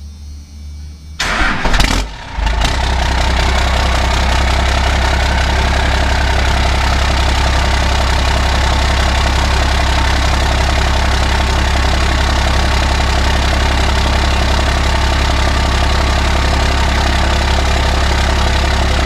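Dodge 12-valve Cummins 5.9-litre inline-six turbodiesel cranking and firing about a second in, then idling steadily through an MBRP 4-inch straight-pipe turbo-back exhaust.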